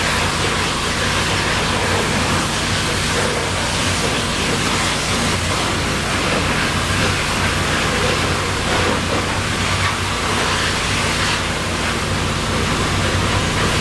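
Hot-water pressure-washer spray hissing steadily against a semi-truck tractor, with a steady low engine hum underneath.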